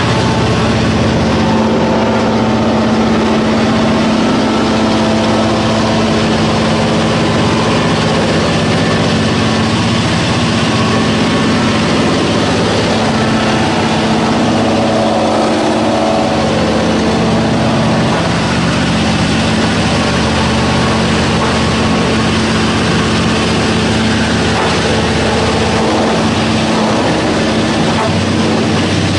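Belt-driven wood sawdust machine running steadily while grinding wood into sawdust: a loud, constant hum with a dense grinding noise over it.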